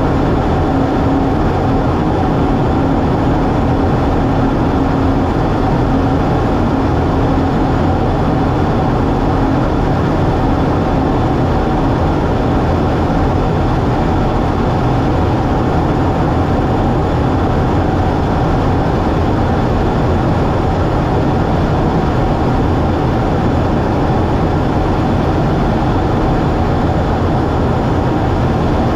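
Steady engine and airflow noise inside a fighter jet's cockpit in level formation flight, an even rush with a faint steady hum that does not change.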